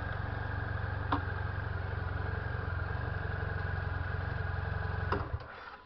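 BMW F 800 GS parallel-twin engine idling steadily, with a sharp knock about a second in and another just before the engine is switched off near the end.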